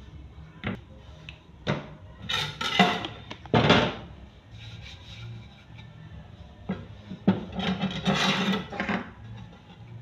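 Wooden rolling pin rolling out a ball of dough on a floured table: two bouts of rubbing strokes, each about one and a half seconds long, with a few sharp knocks between them.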